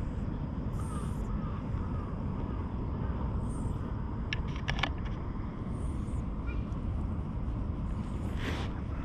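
Outdoor park background: a steady low rumble, with faint bird calls early on, a few sharp clicks about four and a half seconds in, and a brief hiss near the end.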